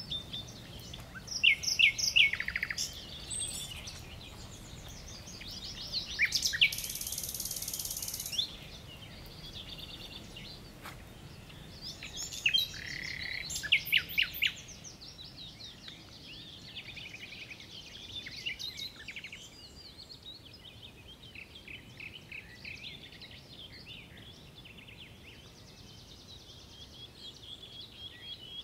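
Several songbirds singing and calling together: rapid chirps and trills, busiest in the first half and thinning out later, with a buzzy high trill about six seconds in.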